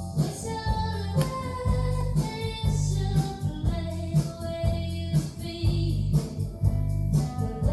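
Background music: a song with a sung melody over a steady beat and bass line.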